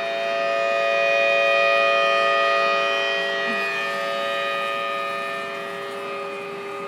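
Civil defense tsunami warning sirens sounding a steady tone, a chord of several held pitches, swelling louder about two seconds in and then slowly easing off. The sirens are giving the tsunami warning alert.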